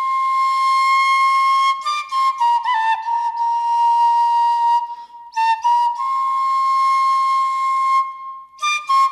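Solo bansuri (Indian bamboo flute) playing a slow Moravian folk melody in long held notes with quick ornamental turns between them. There are short pauses between phrases about five seconds in and near the end.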